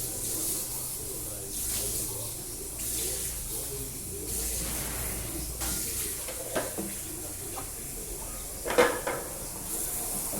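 Kitchen washing-up sounds: water running and splashing while pots and utensils clink, with one louder clank near the end.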